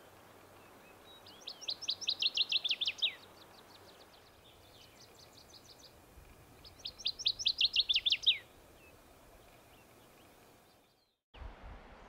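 Northern waterthrush singing: two loud songs, each a fast run of sharp down-slurred notes ending in a few lower, falling notes. One comes about a second in and the second about halfway through, with a fainter bird song between them.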